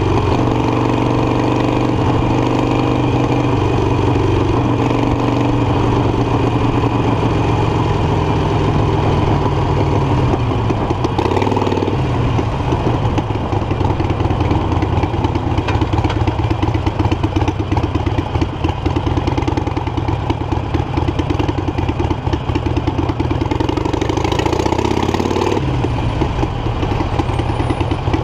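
Harley-Davidson Iron 883 Sportster's air-cooled V-twin running steadily under way, heard from the handlebars. The engine note rises and then drops about eleven seconds in, and again near the end.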